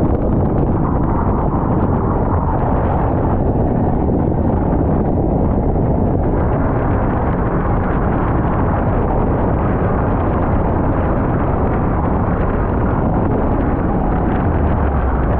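Speedboat with three 300-horsepower engines running at speed, a loud, steady rumble mixed with wind buffeting the microphone.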